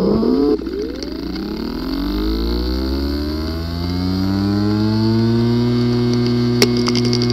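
Hard drive with a physically damaged disk assembly powering up. A brief loud buzz comes first, then the spindle motor's whine rises in pitch over a few seconds and settles to a steady hum, with a sharp click near the end. Clicking and buzzing are the symptoms of physical damage inside the disk assembly.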